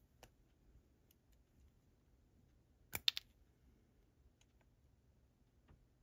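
Small hand wire cutter snipping a thin insulated wire: a sharp double click about three seconds in, with faint scattered handling clicks around it.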